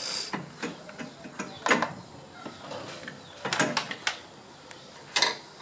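Several separate plastic knocks and clicks from a car's coolant expansion tank being worked loose and lifted out of the engine bay by hand.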